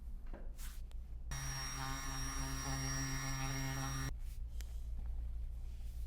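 A small electric motor runs for about three seconds, a steady hum with a high whine, switching on and off abruptly.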